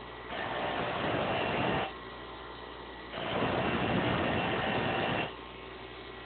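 Grinder motor running with a steady hum while a pair of metal lock-pick blanks is pressed against the wheel twice, each a rasping grind of about one and a half to two seconds. The grinding is in short passes, keeping the picks cold so the metal is not annealed.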